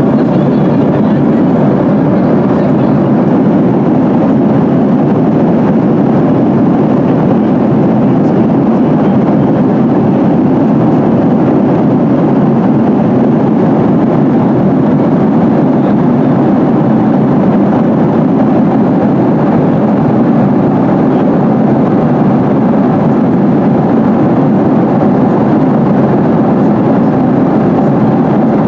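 Steady, even roar inside the passenger cabin of a Boeing 737-800 in flight: the noise of its CFM56-7B turbofan engines and the rushing airflow, with no change in pitch or level.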